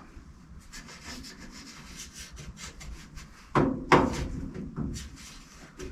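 Handling sounds of light rubbing and scraping with small clicks, and two louder knocks about three and a half and four seconds in.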